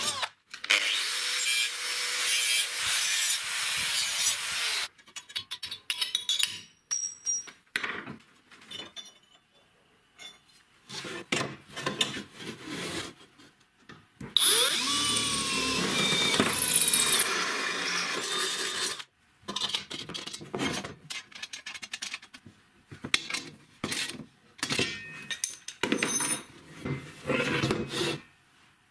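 Electric drill boring through thin-walled rectangular steel tubing, in two runs: one of about four seconds at the start and one of about five seconds in the middle. Between and after them come scattered knocks and clinks of the steel tubes being handled on the workbench.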